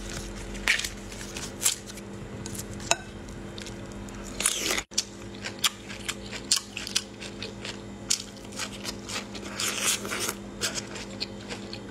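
The husk of a cooked bamboo shoot torn off by hand, then crisp bites and chewing of the peeled shoot, heard as many short crunches and crackles. A steady low hum runs underneath.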